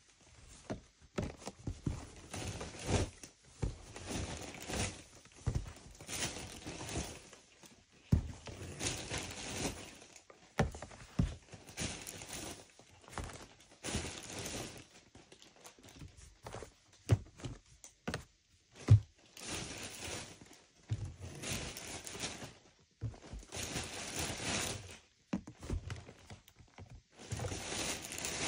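Plastic shampoo bottles being set down one after another in a cardboard box: irregular knocks and thuds, with rustling in between.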